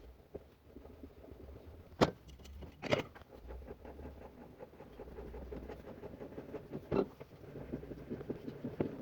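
Farm tractor engine running with a low rumble while backing a baler into a shed, with small rattles and three sharp knocks, about two, three and seven seconds in.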